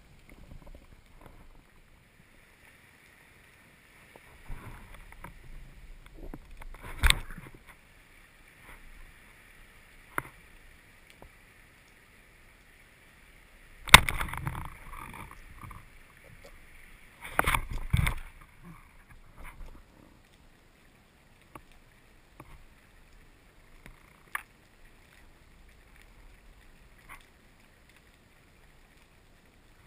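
Underwater sound heard through a camera housing on a speargun: a faint steady hiss, broken by a few sharp knocks and clatters from the gun. The loudest knock comes about halfway through, and a short cluster follows a few seconds later.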